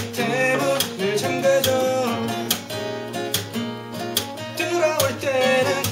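Several acoustic guitars strummed together in a steady rhythm, with a man's voice singing at the start and again near the end.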